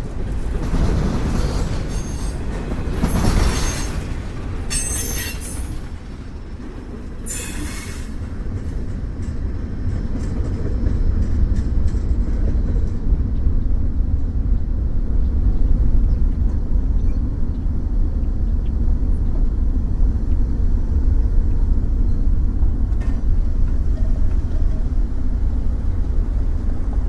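Freight cars of a Norfolk Southern mixed manifest train rolling past with a steady low rumble. There are a few short, high-pitched bursts in the first eight seconds, typical of wheels squealing against the rail.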